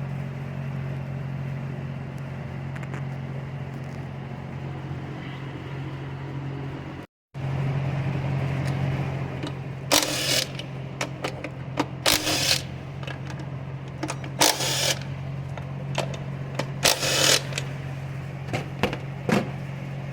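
A steady low mechanical hum with a brief dropout about seven seconds in. From about ten seconds on, half a dozen loud, sharp clanks and rattles of tools on metal break in.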